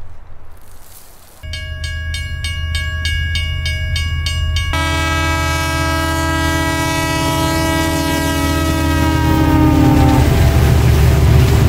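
Train horn sounding over the low rumble of a moving train: first horn tones broken by a rapid clatter about four times a second, then one long blast that slowly drops in pitch and cuts off about ten seconds in. The rumble grows louder toward the end.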